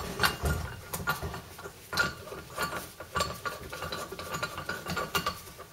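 Metal clicks and knocks as the parts of a bearing-race press tool, a threaded rod and its pieces, are fitted through a brake disc hub, with some light ringing.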